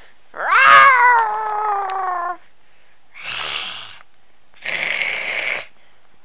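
Domestic cat giving a long, drawn-out meow that rises sharply and then slowly sinks over about two seconds, followed by two shorter, raspy, breathy cries.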